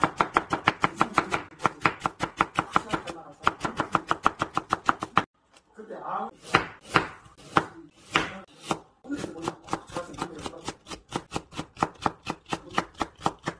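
Kitchen knife rapidly chopping on a wooden cutting board, julienning apple and then carrot into thin strips. Quick, even knocks come about six a second, break off briefly about five seconds in, turn slower and uneven for a few seconds, then pick up the fast rhythm again.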